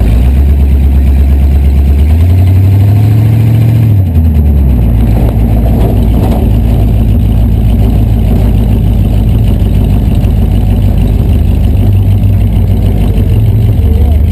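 Rat rod's engine heard from inside the cab while driving slowly. It runs steady, revs up with a rising note about two seconds in, drops back after about four and a half seconds, and then runs on low and steady.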